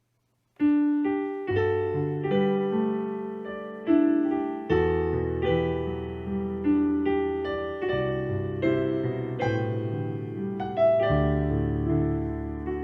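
Piano playing the introduction before the choir enters, starting about half a second in, with notes struck roughly every half second over held low chords.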